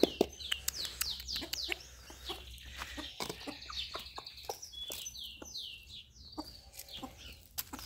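Chickens clucking softly while they peck up winged termites from bare dirt, with many quick pecking taps. High, falling bird chirps come and go over it.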